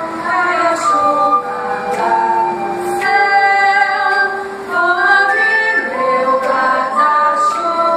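A small group of young female voices singing a song together, unaccompanied, without a break.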